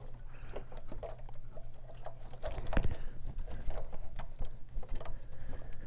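Irregular small clicks and taps of electrical connectors and tester clip leads being handled and fitted on a fuel injector, over a steady low hum.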